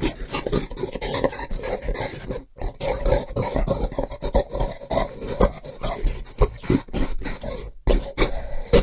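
Gorilla making a rapid series of short, sharp sounds, several a second, with a brief break about two and a half seconds in and another near the end.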